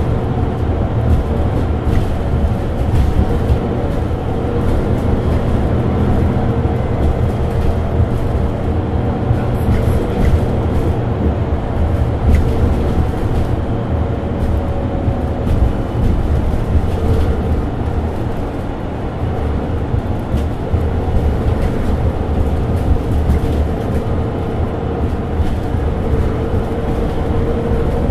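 Mercedes-Benz Citaro 2G articulated bus standing with its diesel engine idling, a steady low rumble with an even hum above it.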